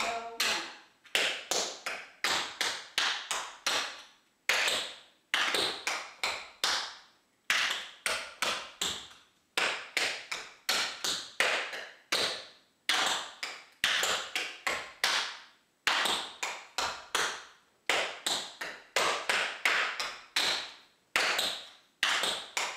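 Tap dancing: the metal taps of tap shoes strike the floor in quick phrases of several clicks, each phrase followed by a short pause, repeating with no music.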